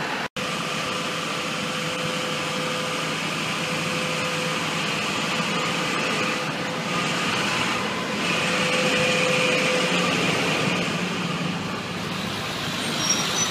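Steady city street noise of vehicle engines idling and running, with a steady hum throughout and a brief gap just after the start.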